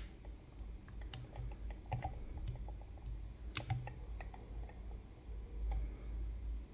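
Irregular small clicks and light scraping of a lock pick and tension tool working the pins inside a CISA AP3 lock cylinder, with a few sharper clicks about one, two, three and a half and nearly six seconds in.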